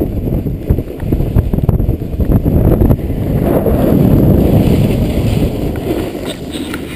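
Wind buffeting a GoPro's microphone during a fast run down a snowy ski slope, with the rush and scrape of snow under the rider, loud throughout and swelling a little midway.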